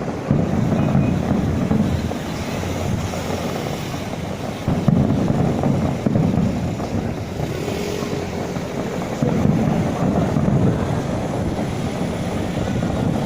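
Low rumbling wind noise buffeting the microphone, swelling and easing in gusts every few seconds.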